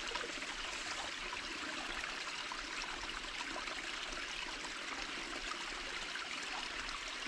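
Steady trickle and rush of creek water running through and over a beaver dam of sticks.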